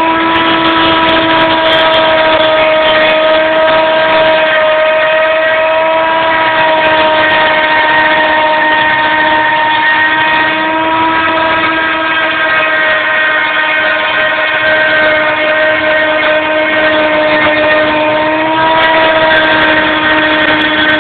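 CNC milling spindle running at speed with a steady, loud whine while its cutter mills 2.5 mm ABS plastic sheet. The pitch wavers slightly now and then under the cutting load.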